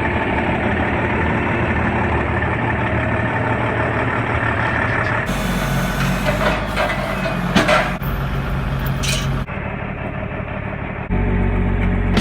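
Heavy logging truck's diesel engine running, heard in several short clips cut together, with a few sharp noises in the middle.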